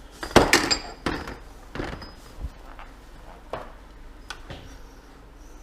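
Metal brake caliper pistons and parts clinking and knocking as they are handled on a workbench. There is a loud cluster of clinks about half a second in, then single lighter knocks spaced across the next few seconds.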